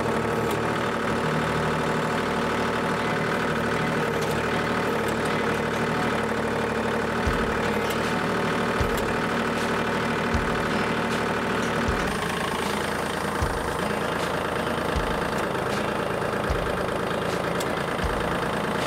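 Kubota L2502 tractor's three-cylinder diesel engine running steadily while the front loader and grapple are worked. From about halfway through, a low thump comes roughly every second and a half.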